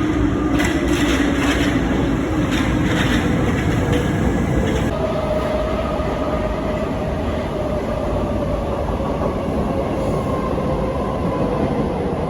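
Train running, with rumble and repeated clacks of the wheels over the rails for the first few seconds. After that comes a steady whine that slowly falls in pitch.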